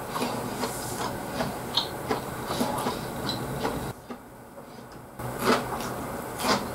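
Close-miked eating sounds of a person chewing food: irregular wet clicks and smacks of the mouth, with a couple of sharper crunchy clicks near the end.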